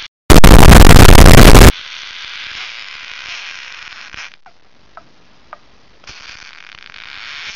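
A very loud, distorted blast of noise about a second and a half long, the 'Triggered' meme sound effect. It is followed by a steady hiss with a few faint short chirps.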